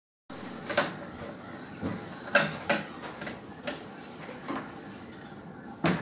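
Waterbirds calling, mostly black-headed gulls: about eight short, harsh calls at uneven intervals.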